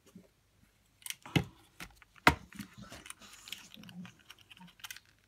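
Crafting handling noise: a few sharp knocks, the loudest about two seconds in, as a hot glue gun is set down, then light crinkling and tapping of folded paper being pressed into place.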